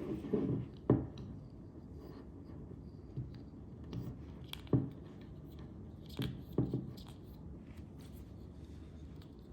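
Hands handling and taking apart the metal parts of a Nodal Ninja 3 MKII panorama head: a string of separate sharp clicks and knocks, a few seconds apart.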